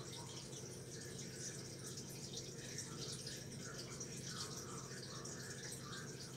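Turtle tank's water filter running: a steady low hum with water trickling and dripping over it.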